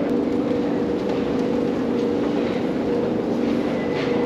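Steady mechanical hum of an underground rail station, with two constant low tones over a noisy background haze. A thin high tone joins near the end.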